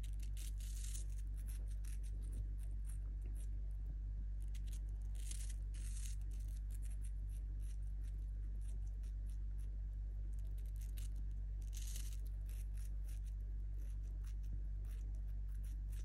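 Rainbow lorikeet nibbling and chewing a slice of raw apple with its beak: irregular small crunches and clicks, in denser runs about half a second in, around five to six seconds and around twelve seconds. A steady low hum runs underneath.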